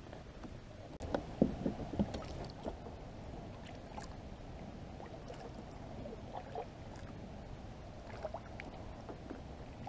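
Kayak paddle strokes in calm water: soft dips and drips of water, with a few knocks in the first two seconds as the paddle is picked up.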